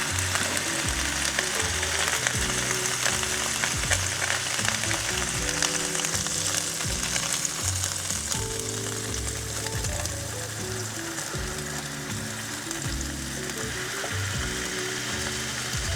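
Beef burger patties sizzling and crackling on the hot cooking surface of a Weber PULS electric grill as they are smashed flat. The sizzle is strongest in the first half and eases a little after about ten seconds. Background music with low sustained notes plays underneath.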